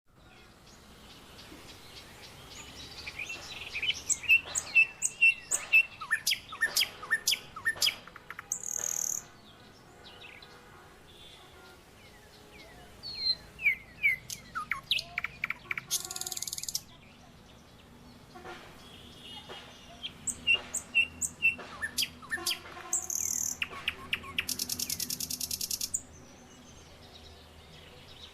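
Birds chirping and calling in bouts of quick, sharp chirps, with a few buzzy high-pitched trills; the longest trill, near the end, lasts about two seconds.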